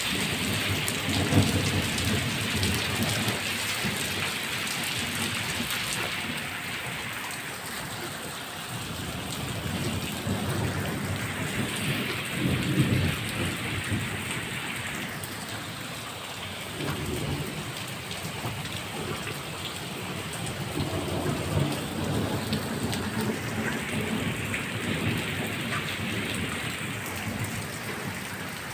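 Steady rain falling on a paved courtyard and rooftops, with low rumbles that swell and fade several times.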